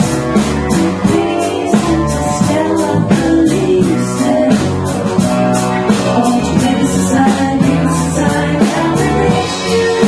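Live band playing a soft-rock song, with sustained instrumental notes over a steady drum beat.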